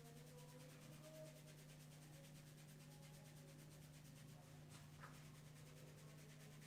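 Near silence: faint rubbing of hands massaging a head of hair, over a steady low hum, with two faint clicks about five seconds in.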